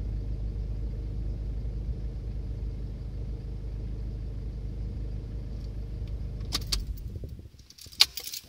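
Toyota D-4D diesel engine idling steadily after a cold-weather start, heard from inside the cabin. About seven seconds in it is switched off and the rumble dies away, with a few clicks and a sharper click near the end from the ignition key.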